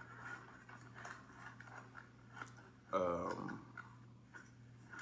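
Faint scattered clicks over a low steady hum. About three seconds in, a man gives one short wordless vocal sound that falls in pitch.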